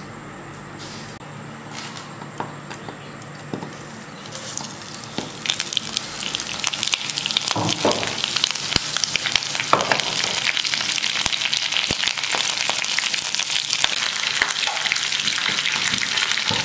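Fresh curry leaves frying in hot oil in a frying pan. The pan is quiet at first, then from about four seconds in the leaves hit the oil and it spits and crackles loudly and steadily.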